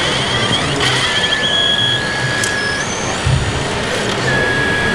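Whine of a radio-controlled model wheel loader's electric hydraulics, a steady high tone that starts and stops as the arm and bucket move, with a low thud about three seconds in as the bucketful of soil drops into the model dump truck's bed. Busy hall crowd noise underneath.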